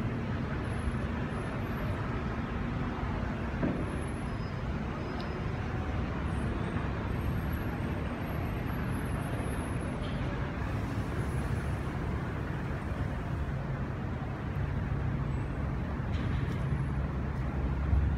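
Steady low rumble of road traffic, with a vehicle engine running nearby.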